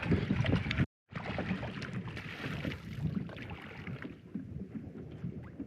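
Wind rumbling and buffeting on the microphone, as an even noise with no engine tone. It cuts out to silence for a moment about a second in, then resumes.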